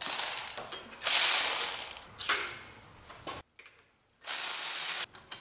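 Milwaukee ratchet working bolts loose in several short spells, the last one a steady run of just under a second, as the power steering and accessory brackets are unbolted.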